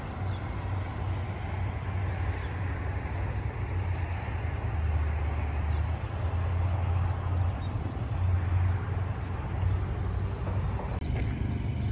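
Truck engine running with a steady low drone and rumble as the vehicle rolls slowly.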